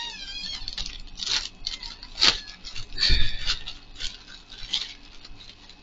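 Clear plastic packaging bag rustling and crinkling as it is handled and opened, with a few sharper crackles.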